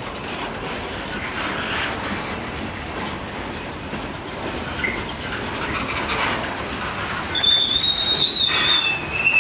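Freight cars of a CSX manifest train being shoved past, their wheels rolling on the rail with a steady rumble. About seven seconds in, a wheel starts to squeal with a high steady tone, which drops to a lower pitch near the end.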